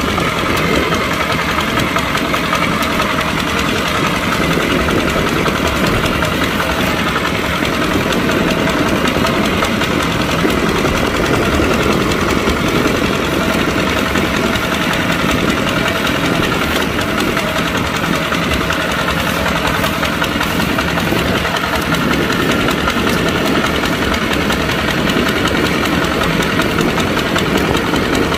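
Kubota tractor's diesel engine running steadily while plowing.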